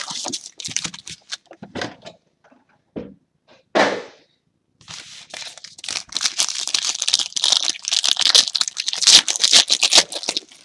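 Trading-card pack taken from a cardboard hobby box, then its wrapper crinkled and torn open. A short rustle comes a little before 4 s, and from about 5 s the wrapper crackles steadily as it is torn.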